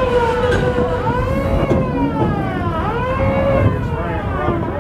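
A siren wailing, its pitch sweeping up and down about every second and a half, over the steady low rumble of the moving train.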